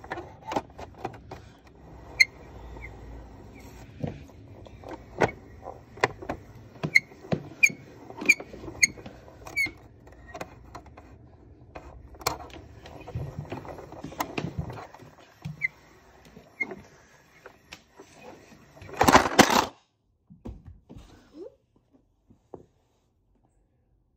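Clicks and knocks of small hard plastic objects being handled and moved, some with a short squeak, and one louder scraping rush lasting under a second late on.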